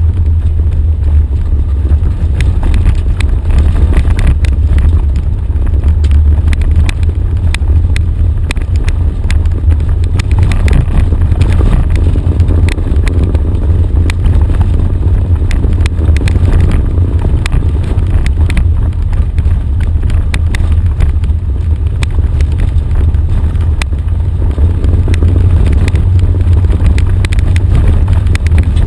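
Off-road vehicle driving on a rough gravel dirt track, heard from inside the cab: a loud, steady low rumble of engine and tyres, with frequent small clicks and rattles from gravel and the vehicle's body.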